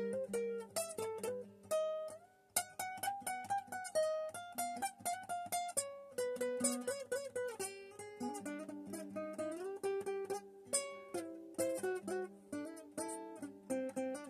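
Solo plucked-string instrument playing a fast single-note melody of quick runs, with a few bent or wavering notes about halfway through, in a rag mixing Turkish/Arabic and jazz styles.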